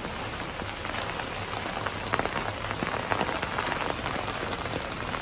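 Steady rain falling on hard paved surfaces, an even hiss with many close drops ticking and splattering.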